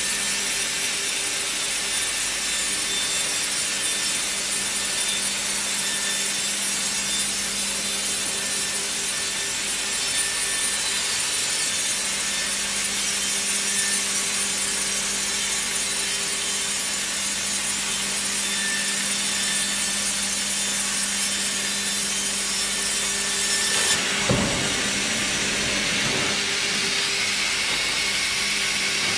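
A band saw headrig sawing lengthwise through a log, with the debarker liner's cutter scoring the bark just ahead of the blade: a steady sawing noise over the machine's hum. About 24 s in, the high cutting noise drops off suddenly and a couple of thumps follow.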